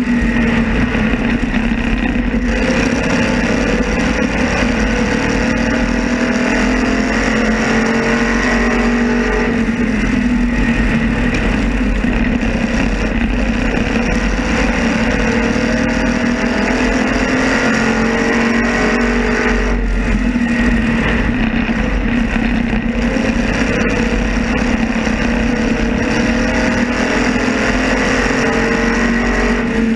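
Onboard engine of an open-wheel modified race car running at racing speed, its note repeatedly climbing and then dropping back as it laps.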